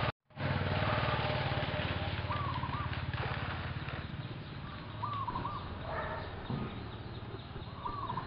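A motor engine runs steadily and drops away about four seconds in. Over it, a bird repeats the same short two-note call three times, a couple of seconds apart.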